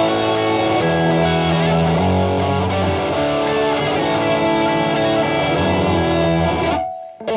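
Les Paul-style electric guitar playing held chords and notes that change about once a second. The music cuts off suddenly near the end.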